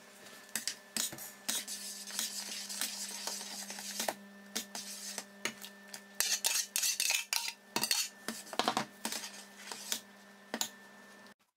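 Metal ladle clinking and scraping against a stainless steel pot as tomato purée is poured in and stirred. A steady low hum runs underneath and stops suddenly near the end.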